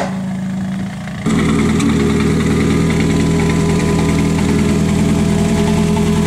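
Volkswagen Polo Proto race car's engine idling steadily up close. It is quieter for about the first second, then jumps abruptly louder and holds steady.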